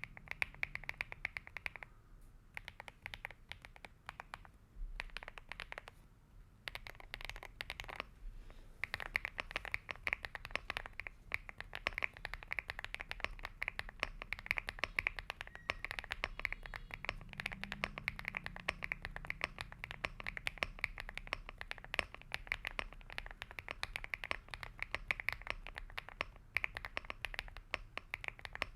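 Typing on a Mchose GX87 v2 mechanical keyboard with Mchose Gauss switches: soft, creamy key strokes, sparse at first, then fast continuous typing from about nine seconds in. The switches are stock and unmodded, with stabilizers that barely tick.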